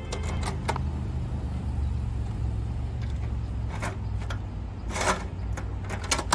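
Folding camping table parts being handled: a few sharp clicks and knocks near the start, around four seconds in, a louder one about five seconds in, and another just after six. A steady low rumble runs underneath.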